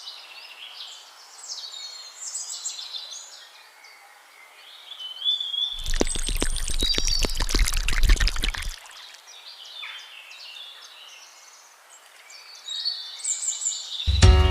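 Birds chirping over a faint outdoor hiss. From about six to nine seconds in comes a burst of dense clattering and rushing noise with a low rumble. Music comes in just at the end.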